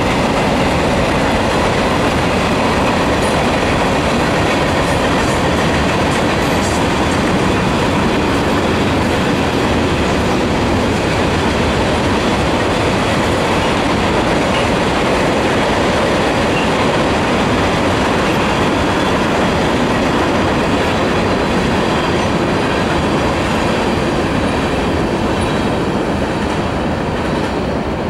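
Freight train's covered hopper cars rolling past, a steady run of steel wheels on the rails, easing slightly near the end.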